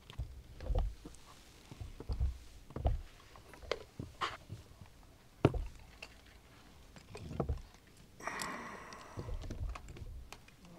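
Microphones on table stands being moved and adjusted, picked up as a string of dull thumps and knocks, with one sharper click about halfway through.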